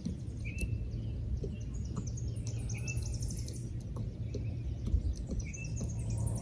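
Small birds chirping: a few short calls spaced a couple of seconds apart, with fainter high twittering, over a steady low rumble.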